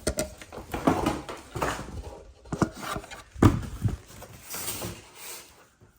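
Irregular knocks, scrapes and rubbing of packaging and boxed parts being handled and set down during unpacking, with the loudest knock about three and a half seconds in.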